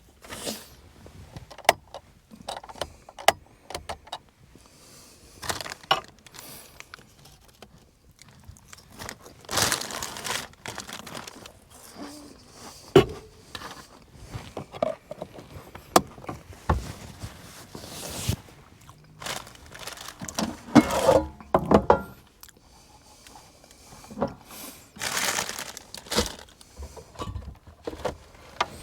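Objects being handled: rustling and crinkling, with scattered clicks, knocks and jangles at irregular intervals.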